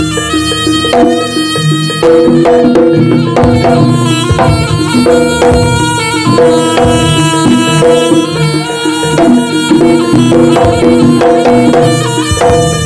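East Javanese jaranan music played loud through a PA: a slompret (shawm) plays a wavering, bending melody over kendang drumming and gamelan percussion.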